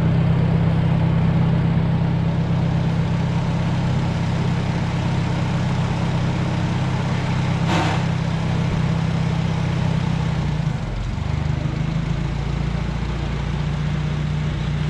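Engine idling steadily with a low, even hum; its note shifts slightly about eleven seconds in. A brief noise stands out about eight seconds in.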